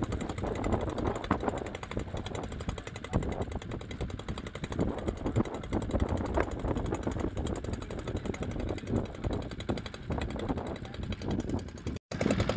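Small petrol engine driving a piston air compressor, running steadily with a fast, even rhythm: the compressor supplying breathing air to divers through their hoses.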